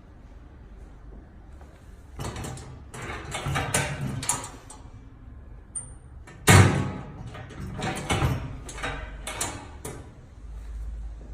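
Irregular knocking and clattering, like objects being handled and bumped, starting about two seconds in, with the loudest knock about six and a half seconds in.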